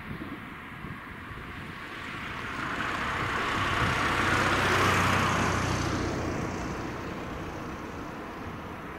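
A small hatchback car drives past close by. Its tyre noise and engine hum swell to a peak about five seconds in, then fade away.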